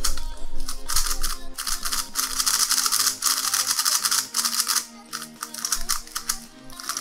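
Rapid plastic clicking and clacking of a YuXin Kylin V2M magnetic 3x3 speed cube being turned by hand, densest in the middle and thinning out near the end. The cube is dry and locks up quite a bit, which the cuber thinks could mean it is too tight. Background music plays underneath.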